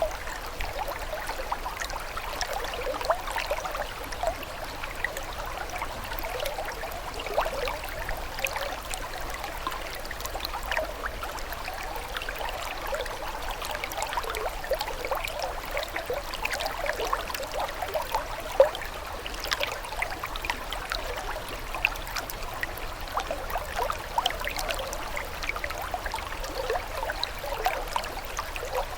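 Running water trickling and gurgling steadily, full of small, quick splashes and bubbling notes.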